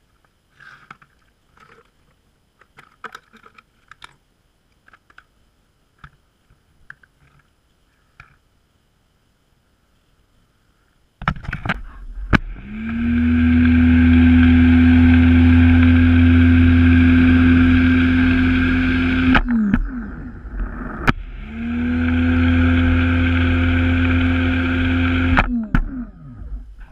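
Faint clicks and rattles of a foam dispenser bottle being handled and fitted. After about eleven seconds, a Greenworks electric pressure washer's motor and pump start up, rising briefly in pitch, and run steadily for about eight seconds while spraying soap through the dispenser. They stop, then run again for about four seconds.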